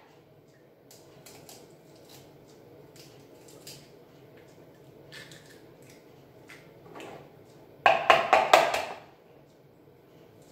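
Eggs being cracked and handled over a plastic mixing bowl: soft clicks and rustles of eggshell, then a quick run of about seven sharp taps against the bowl about eight seconds in.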